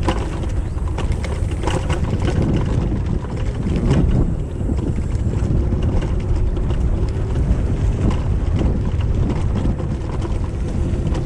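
Kugoo Max Speed electric scooter ridden over rough, stony ground: tyres rumbling over small bumps, with the frame and fork clattering and rattling, and wind on the microphone.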